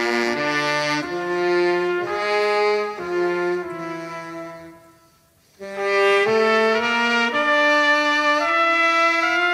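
Trumpet and saxophone playing held notes together as chords, the notes changing every half second to a second. The sound fades out briefly about five seconds in, then comes back with longer held chords.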